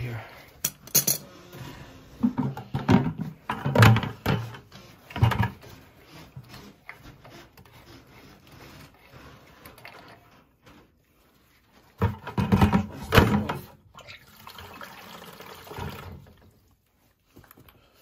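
Metal clicks and clinks from brass valve fittings on a steam boiler's sight-glass piping being handled, with some talking in between.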